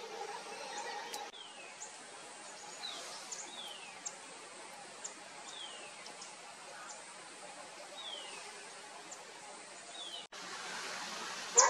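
Bird calls: short whistled notes that fall in pitch, repeated every second or two, with faint high ticks, over a steady hiss of forest background.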